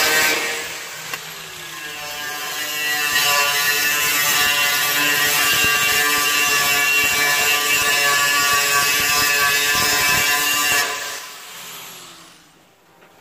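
Angle grinder grinding on the rusty steel bonnet panel of a 1937 Chevrolet truck, a harsh whine with a steady pitch. It is quieter for a couple of seconds just after the start, then grinds loudly again. About eleven seconds in it is switched off and the whine winds down, falling in pitch.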